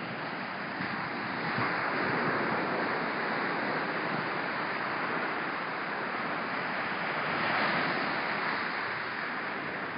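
Small surf washing steadily onto a sandy beach, with a light breeze on the phone's microphone; the wash swells a little near the end.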